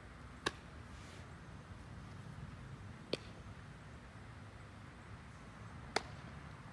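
Three sharp clicks or knocks, about half a second, three seconds and six seconds in, over a low, steady outdoor background rumble.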